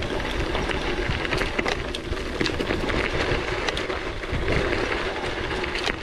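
Gravel bike rolling over a rough, rocky trail, rattling and clattering with many irregular sharp clicks over a constant low rumble.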